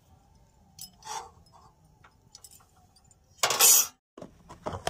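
Steel kitchen utensils clinking: a few light metal taps, then one loud, short clatter about three and a half seconds in, and a couple more clicks near the end.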